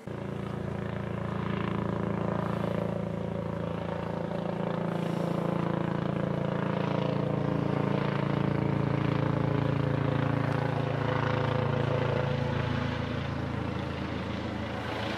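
Low-flying helicopter overhead: a steady droning engine and rotor hum that starts suddenly, holds, and eases off slightly near the end.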